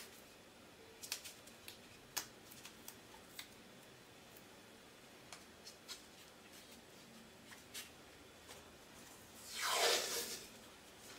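Painter's tape being handled: faint scattered ticks and rubs as fingers press strips down onto a puzzle piece, then, about nine seconds in, a louder rasp of about a second as tape is pulled off the roll.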